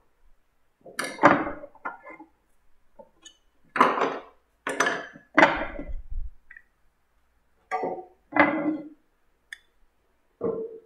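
Wood chisels being lifted out of a wooden rack and set down on a wooden bench one after another: a run of separate knocks and clinks with short gaps between.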